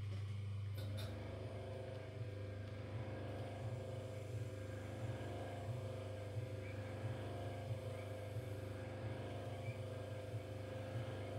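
Electric potter's wheel motor running with a steady low hum, a higher whine joining about a second in, while a hacksaw-blade trimming tool shaves a ribbon of clay off the spinning leather-hard stoneware pot.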